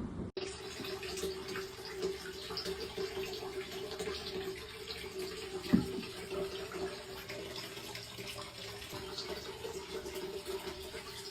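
Water running steadily, with a steady low hum underneath and a single sharp knock about six seconds in.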